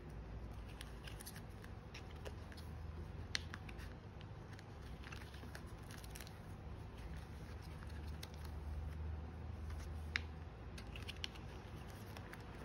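Photocards being handled and slid into the clear plastic sleeves of a photocard binder: faint crinkling of plastic and scattered small clicks, with a sharper click about three and a half seconds in and another about ten seconds in, over a low steady hum.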